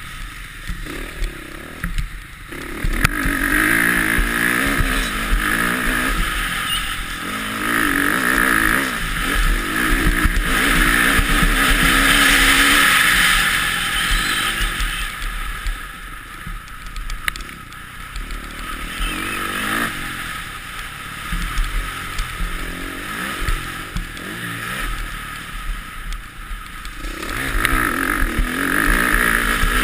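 Motocross bike engine under race throttle, heard from a camera on the bike: it pulls hard for several seconds, eases off and picks up again through the middle, and opens up once more near the end.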